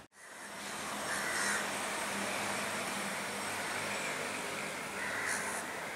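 Crows cawing: two short harsh calls about four seconds apart over a steady outdoor hiss, which fades in after a brief silence at the start.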